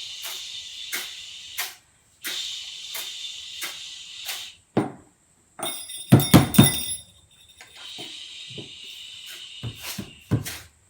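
Home-made percussion soundscape: a shaker shaken in an even beat over a steady wave-like hiss, broken about halfway by a few heavy stomps and a high ringing bell, before the shaker and hiss resume.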